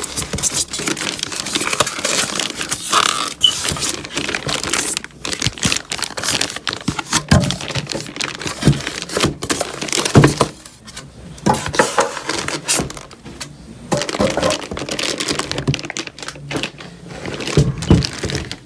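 Packaging being handled by hand: a clear plastic bag crinkling, with foam packing pieces and cardboard scraping and knocking as a rack unit is pulled from its box. A steady run of rustles and sharp clicks, with a couple of brief pauses.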